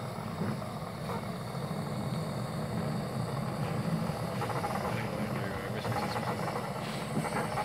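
A hand-pushed railway turntable carrying a 15-inch-gauge steam locomotive, rumbling steadily as it turns, with a few light clicks and clanks near the end.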